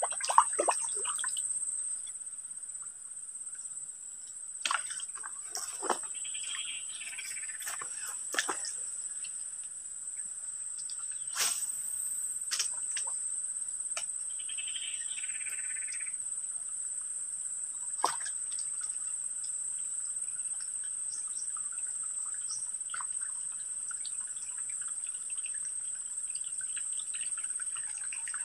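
Steady high-pitched drone of insects, with a handful of sharp clicks and taps scattered through it.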